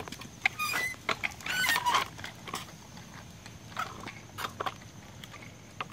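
Plastic wheels of a child's tricycle and training-wheel bike rolling over a concrete sidewalk, with irregular clacks and knocks.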